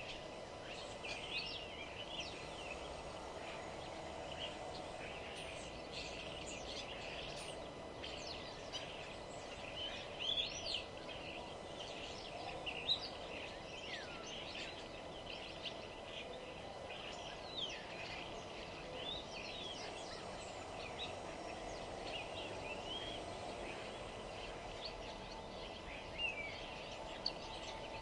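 Several songbirds chirping and whistling, short calls overlapping throughout, over a steady low background hum.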